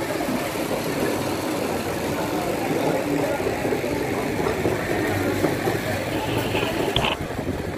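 Indistinct chatter of a crowd of guests, a steady murmur of many voices with no single speaker standing out.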